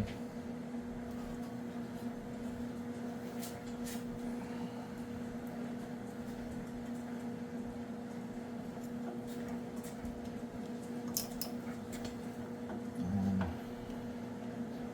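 A steady electrical hum with a few faint, sharp clicks and taps from small parts being handled.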